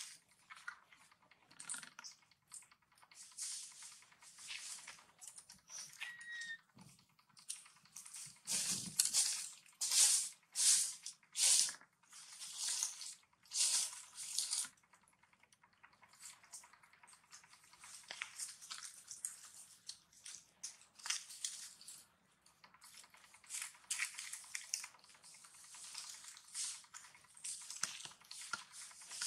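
Dry leaves and sand rustling and crackling in short, irregular bursts as monkeys shift and crawl about on the leaf-littered ground, loudest about ten to fourteen seconds in.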